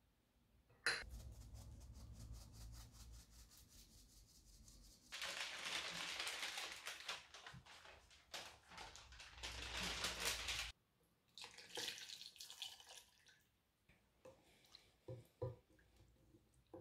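A fine-mesh metal sieve of dry ingredients is tapped with rapid, even light taps. Then comes a louder stretch of rustling and crinkling parchment paper being lifted and folded, which stops suddenly. Near the end there are a few light clinks of a metal whisk against a glass bowl.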